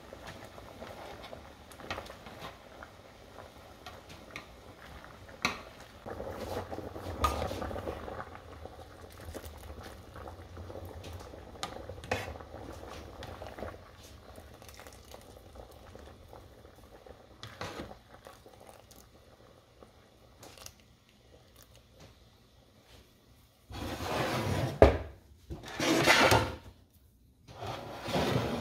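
A pot of spaghetti at a rolling boil, with a utensil stirring and now and then clicking against the pot. Near the end come louder, splashy bursts as the pasta is lifted dripping from the water with a pasta server and dropped into a frying pan.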